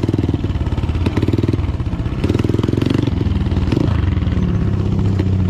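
Motorcycle engine running close by, its revs rising and falling several times as the throttle is worked.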